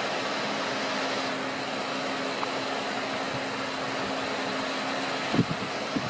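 Desktop PC with its side panel off, running: its cooling fans whir steadily with a faint hum. A couple of dull knocks come near the end.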